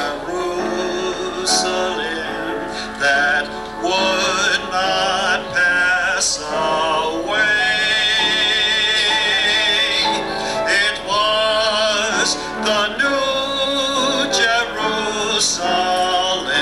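A male soloist singing a sacred song in a full, operatic style, holding long notes with a wide vibrato; the longest note is held for a couple of seconds near the middle.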